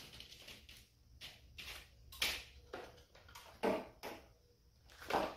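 Hands working wiring and a charge controller into an ammo can: faint rustling broken by several short clicks and knocks, the loudest about two seconds in.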